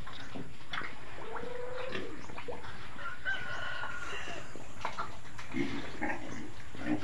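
A rooster crows with one drawn-out call about three seconds in, after a shorter, lower call about a second in. Underneath runs a pig eating from a feed trough, a steady patter of short wet clicks and smacks.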